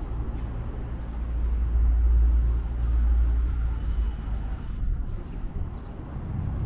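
Low, uneven rumble of wind buffeting the camera's microphone, swelling about two seconds in, with faint light ticks in the background.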